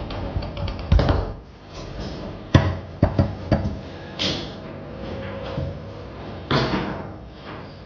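Foosball in play on a Tornado table: the ball is struck by the players' figures and rods, giving a string of sharp, irregular knocks and cracks, about six hard hits over the stretch, with lighter rattling of rods and ball between them.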